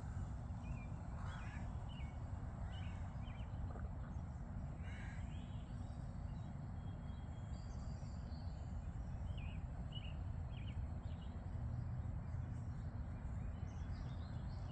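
Birds giving short calls, scattered in small clusters throughout, over a steady low rumble of the beach's surf or wind.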